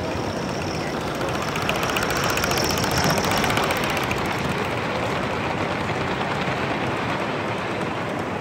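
Gauge 1 model train, a Great Central locomotive with coaches, running past on the track. It makes a steady rumble of wheels on rail that swells as it passes close, about halfway through, with a quick run of fine clicks.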